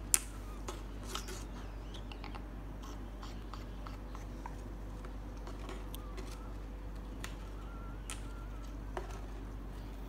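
A sun conure chewing and rustling about in cardboard tubes and twigs: scattered small clicks and crinkles, with one sharp click right at the start.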